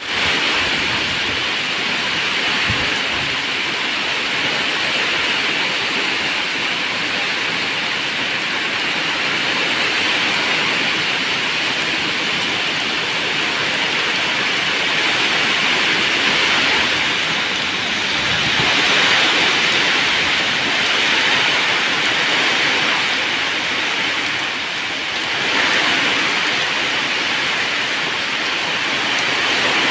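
Heavy rain pouring steadily onto dense tree foliage, a constant hiss that dips briefly about five seconds before the end and then comes back.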